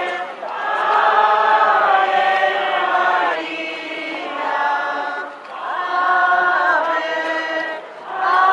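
A group of voices singing a religious hymn together, in long held phrases with brief pauses between them.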